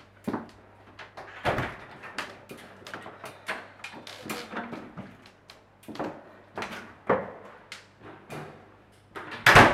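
Irregular knocks and clicks of a BMX bike being handled and wheeled through a small hallway while a door is opened, over a faint steady low hum. A louder bang comes near the end.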